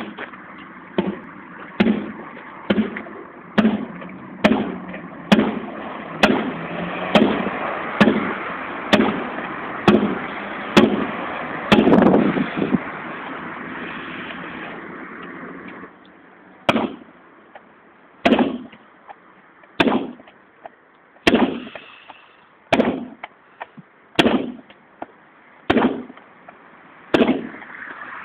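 Carpet beater whacking a carpet in a steady rhythm, about once a second. About halfway through, the blows slow to one every second and a half, and a steady background noise stops.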